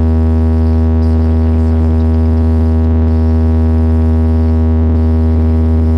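Loud, steady synthesizer bass tone held on one pitch, rich in overtones, played over a DJ sound system as part of a sound-check mix.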